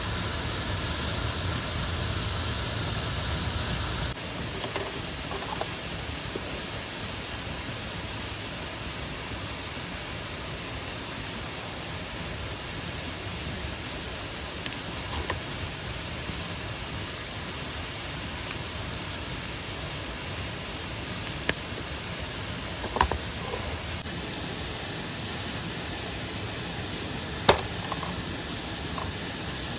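Steady rush of a mountain stream, louder for the first few seconds, with a few sharp clicks near the end.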